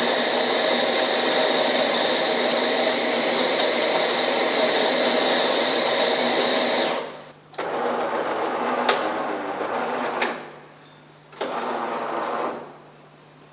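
Bean-to-cup coffee machine (JAVA WSD18-010A) making a coffee: a steady motor whine for about seven seconds, typical of the built-in grinder, then two shorter runs of machine noise with a couple of sharp clicks between them before it stops.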